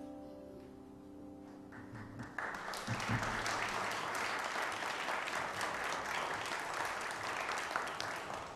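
The last held chord of the choir anthem dies away, then the congregation applauds for about six seconds, fading out near the end.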